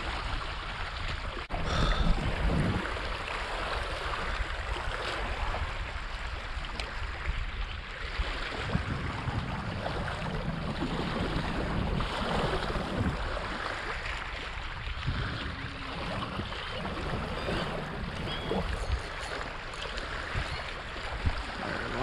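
Small lake waves lapping and splashing against a rocky bank, with wind rumbling on the microphone.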